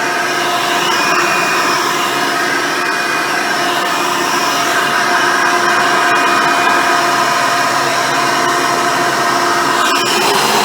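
Hoover Decade Elite Soft & Light upright vacuum cleaner running steadily, its motor giving a whine made of several steady tones as it cleans with its single-row brush roll. A few short clicks come near the end.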